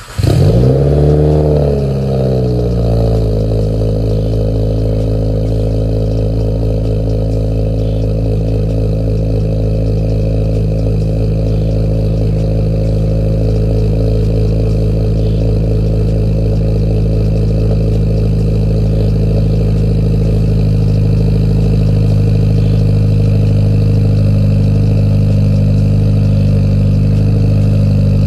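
A 2015+ Subaru WRX's turbocharged 2.0-litre flat-four, breathing through a J-pipe and a Greddy RS catback exhaust, firing on a cold start. It catches, the revs flare up and drop back over the first two seconds or so, then it settles into a loud, steady cold idle.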